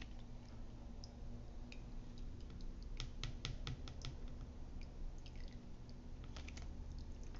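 Light, sharp plastic clicks and taps from a plastic colander of strained mint leaves and lemon slices being handled, scattered at first, then a quick run of them about three seconds in and another few near the end, over a faint steady hum.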